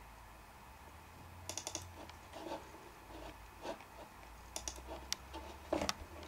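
Scattered clicks and taps of a computer's keys and mouse buttons being worked, some coming in quick runs of several, the loudest just before the end, over a low steady hum.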